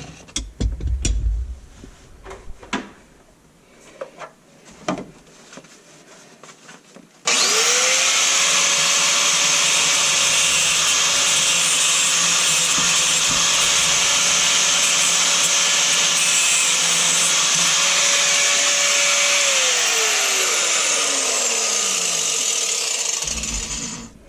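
Handheld power grinder cleaning up the cut end of a drain pipe. A few knocks, then about seven seconds in the motor spins up and runs steadily with a grinding hiss for about twelve seconds, then winds down with a falling whine.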